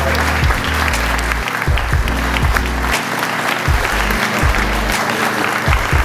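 Audience applauding steadily over background music with deep, changing bass notes.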